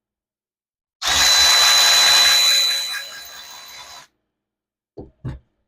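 A power drill runs a thread-chaser die along a trailer wheel stud, a steady whirring run with a high motor whine that tails off after about three seconds. Two short knocks follow near the end.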